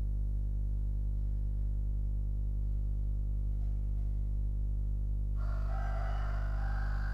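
A steady, deep droning hum made of many layered low tones: the strange sound heard during the earthquake. About five seconds in, a rooster starts crowing over it.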